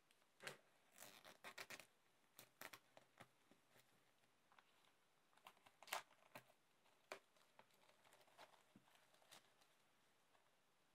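Faint crinkling and tearing of the plastic wrapping on a vinyl record sleeve, with the rustle and taps of the cardboard sleeve being handled. The sounds come in short, scattered crackles, densest about a second in, with a sharper snap near six seconds.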